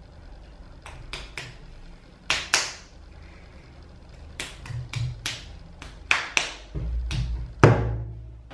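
Hands slapping and patting a ball of soft clay into shape: a string of about a dozen sharp, moist slaps, irregularly spaced. Near the end the clay is thumped down onto a wooden tabletop, the loudest hit.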